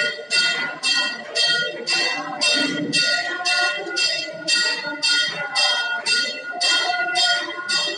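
A temple bell rung steadily at about two strikes a second, each strike ringing on into the next, over devotees' voices singing the aarti hymn.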